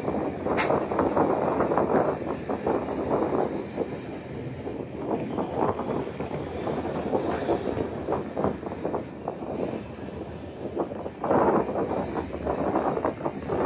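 Iron-ore freight train running along the rails, heard from on top of an open ore wagon: a steady rumble full of metallic clanks and rattles from the wagons and wheels, with a louder surge of clatter near the end.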